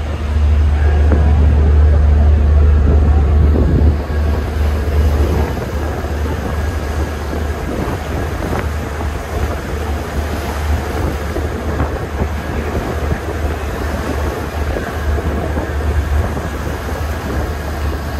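Wind buffeting the microphone aboard a moving passenger ferry, over the steady rumble and water rush of the boat under way. The wind is heaviest for the first few seconds, then eases.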